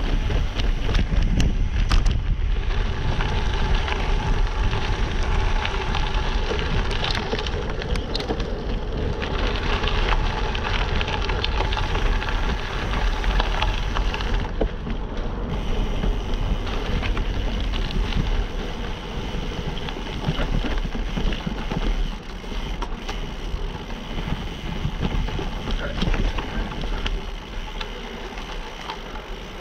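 Gravel bike rolling over a rocky dirt trail: the tyres crunch over gravel and rock, with a continuous run of small rattles and ticks from the bike. Wind buffets the microphone, giving a steady low rumble underneath.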